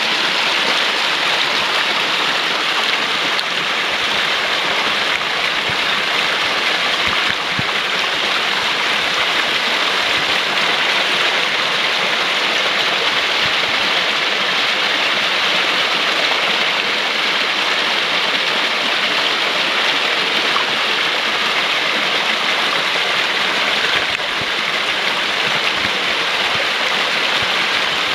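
Water of a small rocky woodland stream rushing over stones and little cascades into pools, a steady, unbroken rushing sound.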